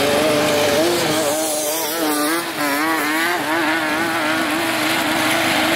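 Stock Toro riding lawn mower's small gasoline engine running under load as the mower is driven and slid across loose dirt, its pitch wavering up and down through the middle.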